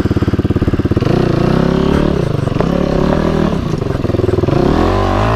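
KTM 250 XC-F dirt bike's single-cylinder four-stroke engine chugging at low revs, then revving up and down under throttle from about a second in as the bike climbs a rocky bank.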